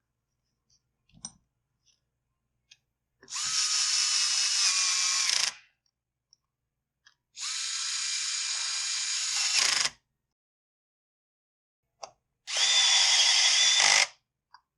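Electric drill-driver driving in the three screws of a brush cutter's cylinder cover: three runs of steady whining, each about two seconds long, with light clicks between them.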